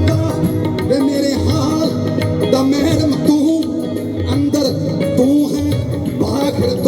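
Live Punjabi folk music playing loud, a wavering melody line over steady drum strokes.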